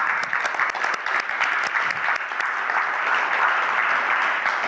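A congregation applauding: many people clapping together in a dense, steady patter.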